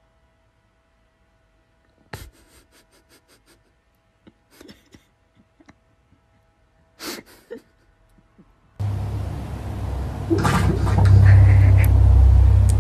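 A dog gnawing on a wooden stair baluster: a string of sharp clicks and knocks of teeth on wood. Then, about nine seconds in, a sleeping dog snoring: a loud, rough, low rumble that swells with each breath.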